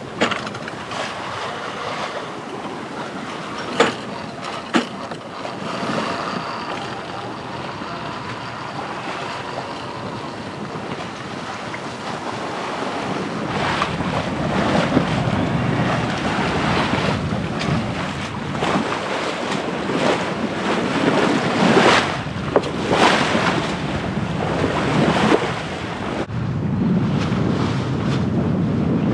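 Water rushing and splashing along the hull of a Pearson 35 sailboat moving under sail, with wind buffeting the microphone. It grows louder and surges about halfway through, and two sharp clicks come about four and five seconds in.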